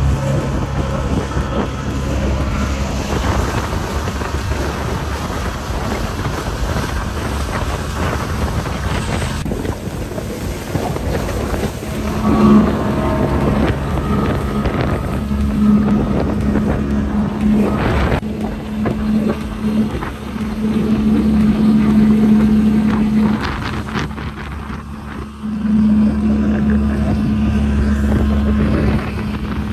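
Outboard motor of a small open fishing boat running at speed, with wind buffeting the microphone. A single sharp knock comes about eighteen seconds in.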